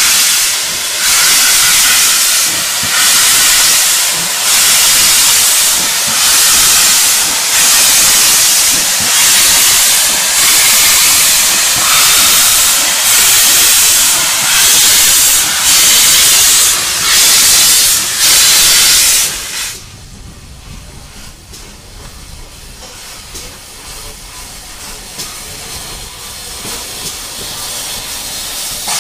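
Steam locomotive (LMS Ivatt Class 4 2-6-0) working under power: loud hissing exhaust beats about one every second or so, with steam blowing from the cylinder drain cocks. About twenty seconds in it cuts to a much quieter steady hiss and rumble from a second steam locomotive, slowly growing louder.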